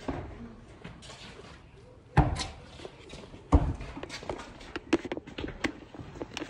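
A basketball bouncing hard on a concrete court: two loud thuds about a second and a half apart, then lighter taps and scuffs near the end.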